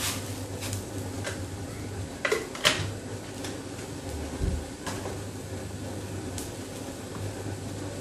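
Water boiling hard in a steel wok over a steady low burner hum, with a few sharp clicks and knocks scattered through, the loudest a little past two seconds in.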